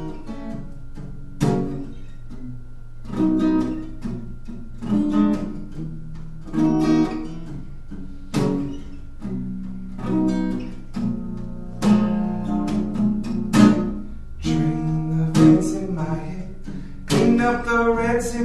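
Acoustic guitar intro of strummed chords, a strong accented strum about every one and a half to two seconds with lighter strokes and ringing notes between.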